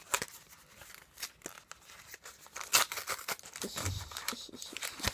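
Foil wrapper of a Pokémon Sword & Shield booster pack being torn open and crinkled by hand, in irregular crackling rustles with one louder rip about two and a half seconds in.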